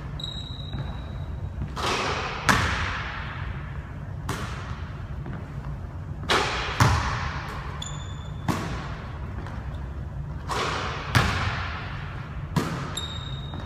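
A basketball thudding on a hardwood gym floor and hoop, about nine echoing impacts a second or two apart, the loudest about two and a half and seven seconds in. Short high sneaker squeaks come three times, under a steady low hum of the hall.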